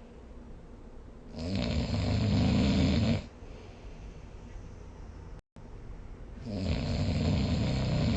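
A sleeping person snoring: two long snores about five seconds apart, each lasting close to two seconds, with quieter breathing noise between them.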